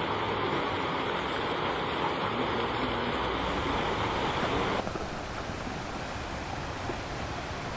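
Steady heavy rain. About two-thirds of the way through it changes abruptly to a softer, more even noise.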